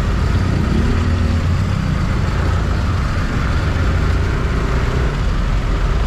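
Motorcycle engine running steadily while riding, with a heavy low wind rumble on the microphone.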